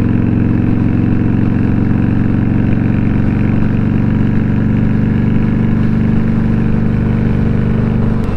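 2017 Indian Scout Bobber's V-twin engine running steadily at cruising speed under the rider, a constant engine note with wind rush over it.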